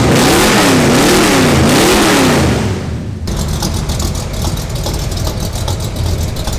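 Chevrolet C10 pickup's engine revved up and down in quick repeated blips for about three seconds, running a little rich. It then drops suddenly to a steady low idle as the truck creeps backward.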